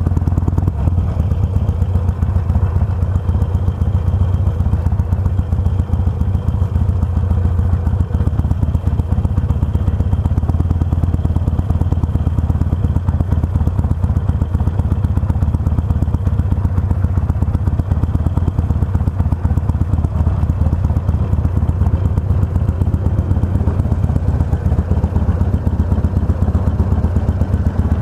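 Harley-Davidson Sportster 883R's air-cooled V-twin engine running steadily at road speed.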